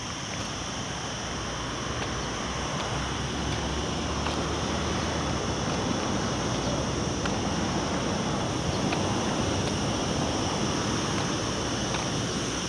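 Steady rushing of wind on a phone microphone, with a low rumble that swells a few seconds in and a steady high hiss above it.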